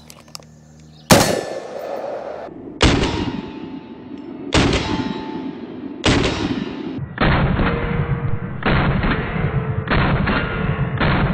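PSA H&R retro M16A1 rifle firing 5.56 rounds in slow, single aimed shots: four sharp cracks about 1.7 s apart, each followed by a long decaying echo. From about seven seconds in the sound turns duller and muffled, with further heavy thumps about every second and a bit.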